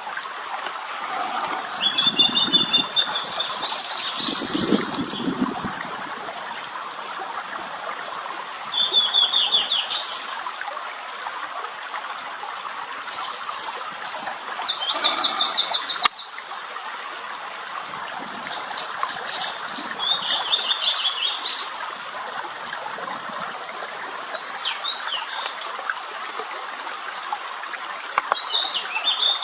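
A tledekan laut songbird singing short, fast trilled phrases, repeated every few seconds over the steady rush of a stream.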